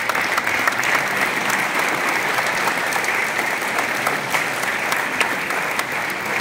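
Audience applauding: dense, steady clapping from many hands that swells up right at the start and holds.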